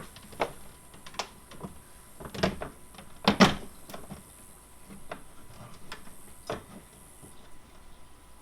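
Scattered knocks and clicks of a carbon fiber diffuser panel being pushed and fitted against a car's rear bumper, its tabs being lined up. The loudest knock comes about three and a half seconds in.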